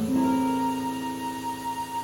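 Background music with a slow held chord, its notes sustained for nearly the whole two seconds.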